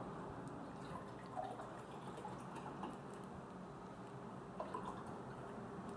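Faint water pouring and dripping as some water is emptied out of a plastic water bottle.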